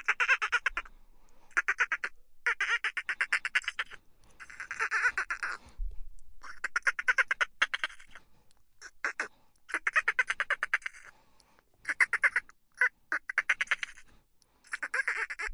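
Dolphin chitter: bursts of rapid buzzing clicks, each from a fraction of a second to about a second long, repeating every second or two.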